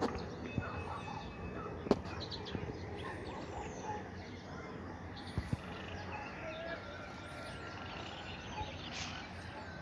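Outdoor ambience: scattered short bird chirps over a steady background hiss, with one sharp click about two seconds in.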